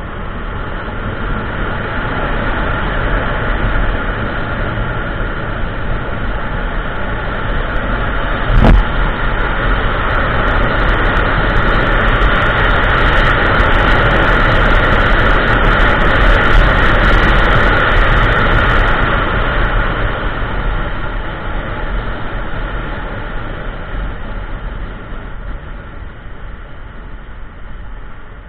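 Kymco Xciting 400i single-cylinder maxi-scooter riding along, its engine mixed with wind and road noise on the onboard microphone. The noise builds toward the middle and eases off near the end, with one short knock about nine seconds in.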